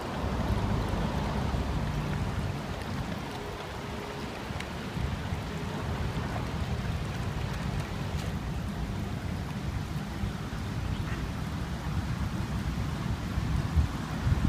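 Wind rumbling and buffeting on the microphone over the steady rush of river water, with no bells ringing.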